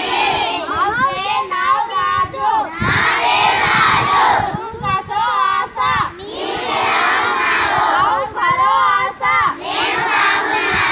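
A large group of schoolchildren chanting phrases in unison, each loud phrase lasting a second or two with short breaks between them. They are reciting lines in Konkani.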